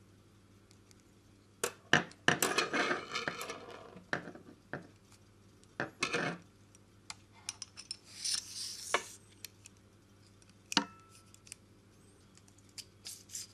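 Small plastic and metal parts of an RC helicopter's rotor head being handled and fitted onto the main shaft: irregular sharp clicks and taps, with a brief scraping rattle about eight seconds in.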